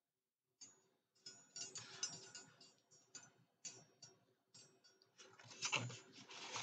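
Small metal charms of a dangling bookmark clinking and rattling as it is handled, a run of irregular light clicks that starts about half a second in and grows busier near the end.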